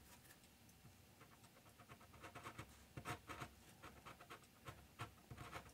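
Faint scratching of a pen on paper as short ink strokes are drawn, in small clusters with near silence between.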